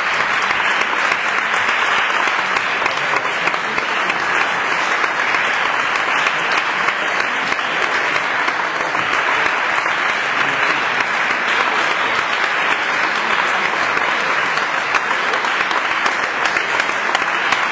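Audience applauding: dense, steady clapping that holds at the same level throughout.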